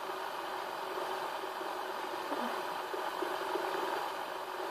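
Several fidget spinners spinning together on a hard floor, a steady whirring from their bearings.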